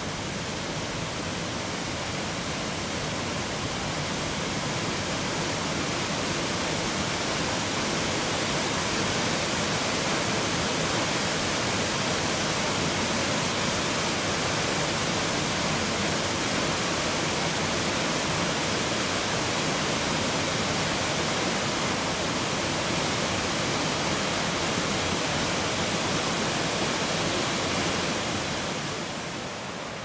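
Waterfall pouring into its plunge pool: a steady rush of falling water, growing a little louder over the first few seconds and dropping away near the end.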